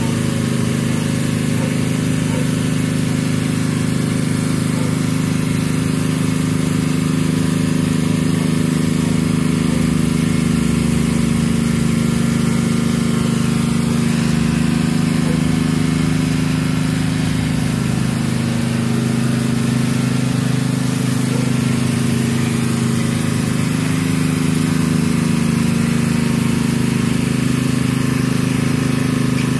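Pressure washer running steadily under an engine's even drone, with the hiss of high-pressure water from a rotary surface cleaner spinning over wet concrete pavers.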